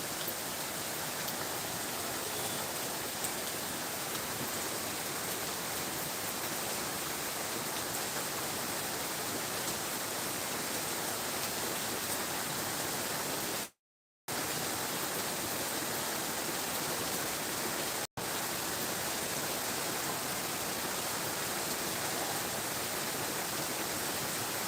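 Steady hiss of continuous rainfall, with the sound dropping out to dead silence for about half a second around fourteen seconds in and for an instant about four seconds later.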